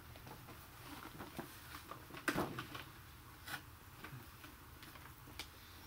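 Faint handling noise of a cardboard-and-plastic doll box: soft rustling with a few scattered clicks, the loudest about two seconds in.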